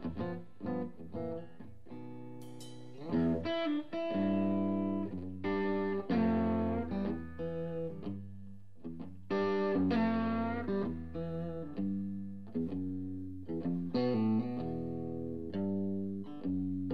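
Live blues-rock band playing: electric guitar lines with effects over bass guitar and drums.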